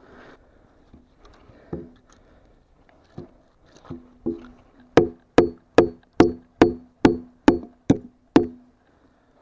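Wood being struck hard and fast: a few scattered knocks, then about halfway in a run of nine sharp strikes, roughly two and a half a second, each with a hollow ringing tone, stopping about a second before the end.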